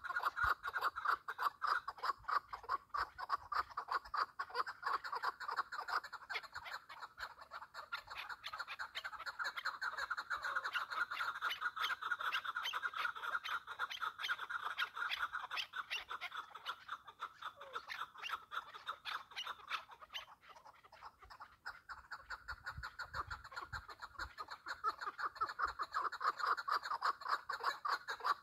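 Partridge calling in a long, rapid run of repeated clucking notes, with a short lull about twenty seconds in.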